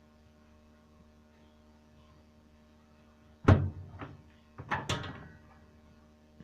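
A faint steady mains hum, then a loud thump about three and a half seconds in, followed by a few lighter knocks and clicks.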